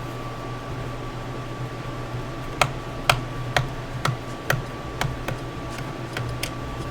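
Small screwdriver turning out a tiny hidden screw from a laptop's bottom case: about ten sharp, irregular clicks starting a couple of seconds in, over a steady low hum.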